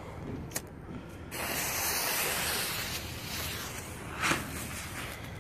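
A firework fuse, lit with a lighter, catches about a second in and hisses loudly as it sprays sparks, the hiss easing after a couple of seconds but going on; a sharp pop near the end.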